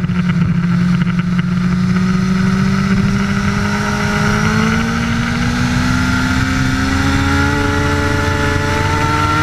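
Sport motorcycle engine at high revs under hard acceleration, its pitch climbing slowly and evenly in one gear with no shift. It is heard from an onboard camera over a steady rush of wind and road noise.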